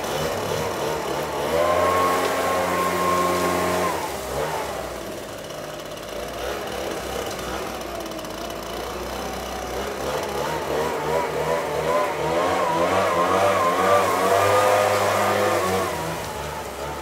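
Gas-powered backpack leaf blower running, throttled up hard for a couple of seconds, eased back, then revved up again with a wavering pitch as it blows grass and debris out of a trailer.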